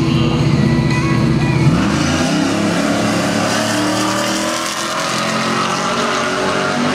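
A 2007 Chevrolet Trailblazer SS's 6.0-litre V8 and a pickup truck's engine holding steady revs on a drag strip's starting line, then launching together a little under two seconds in. Both engines rise in pitch as the vehicles pull away down the quarter mile.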